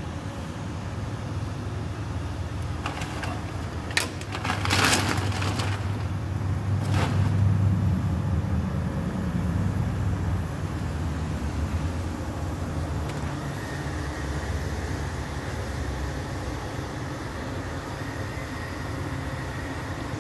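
A steady low mechanical rumble, like a motor running in the background, with a sharp knock about four seconds in and short clattering noises just after it and again a few seconds later.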